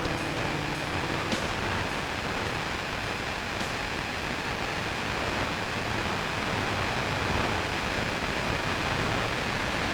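Steady downpour of thunderstorm rain, an even rushing hiss with a few faint drip ticks. A sustained musical note dies away at the very start.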